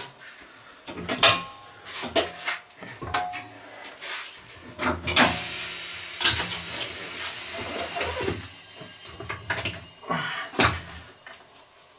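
Knocks and metallic clatter of a car wheel being handled and taken off a tyre-changing machine, with a few short squeaks and a couple of seconds of hiss about halfway through.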